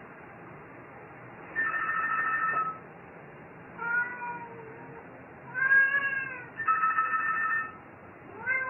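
A telephone rings twice with a steady electronic trill, each ring about a second long. A cat meows in between, three short meows that rise and fall in pitch, answering the ringing.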